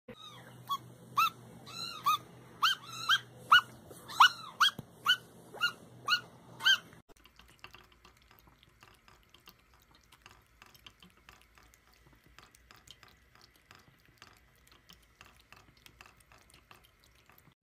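A large dog whining in a quick series of about a dozen short, high-pitched calls, each rising and falling in pitch. About seven seconds in it cuts to a thin tap stream trickling faintly into a sink basin, with soft ticks as a cat laps at the running water.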